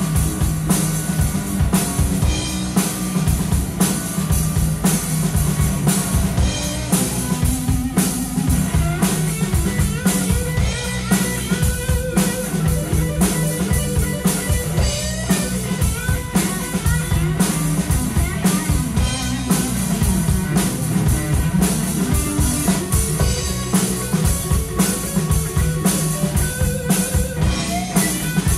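Live rock band playing an instrumental passage with no vocals: electric guitar lines over a driving drum kit and bass guitar.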